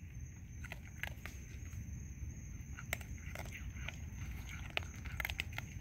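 Two raccoons crunching dry kibble, a faint scatter of irregular crunches and clicks.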